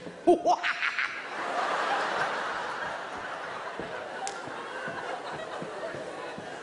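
Live theatre audience laughing: a few short vocal sounds at the start, then a broad wash of crowd laughter that swells about a second in and holds steady.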